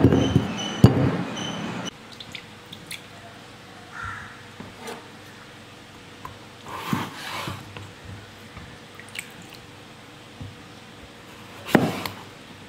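A kitchen knife cutting peeled raw potatoes on a wooden chopping board: scattered soft cuts and light taps, with a sharper knock of the blade on the board near the end. The first two seconds hold a louder passage with steady high tones.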